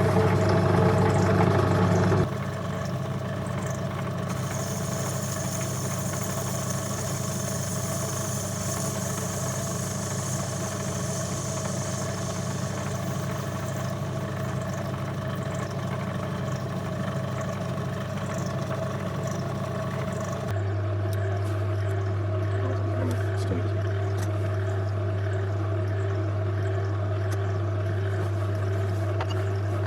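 Myford Super 7 lathe running steadily with a motor hum. The hum changes abruptly about two seconds in and again about twenty seconds in.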